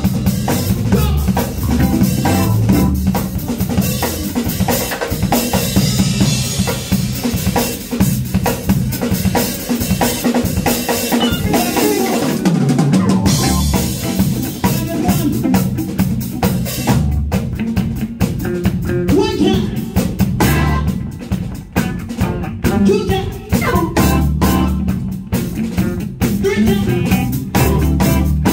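Live band playing an instrumental stretch with the drum kit to the fore: kick drum, snare and rimshots over bass guitar. The bass drops out briefly about twelve seconds in, then the groove comes back in.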